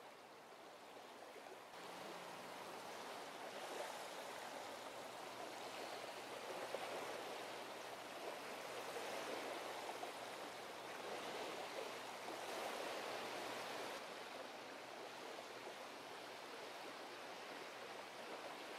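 Steady rush of water, swelling and easing slowly, with a faint low hum underneath; the grebe makes no audible call.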